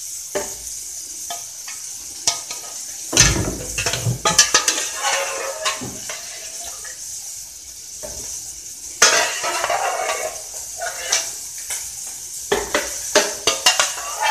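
A metal spoon knocking, clinking and scraping against an aluminium pressure-cooker pot as boiled potatoes are scooped out into a blender jar, with a few heavier thuds. Underneath runs a steady high sizzle of bacon and sausage frying in their own fat.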